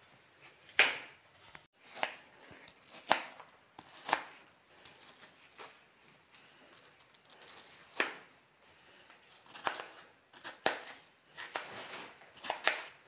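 Kitchen knife cutting a round slice of watermelon into wedges on a plastic plate: a series of sharp chops and knocks at irregular intervals, a few close together near the end.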